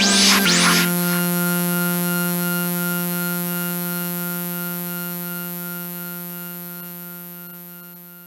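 Background electronic music ending: a last drum hit with a cymbal splash, then one held synthesizer chord that slowly fades out.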